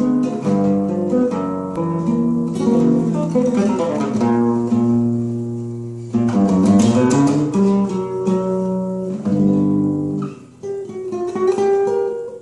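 Nylon-string guitar played solo, an improvisation of picked notes and chords. The notes ring and fade in places, and about six seconds in there is a quick strummed flourish.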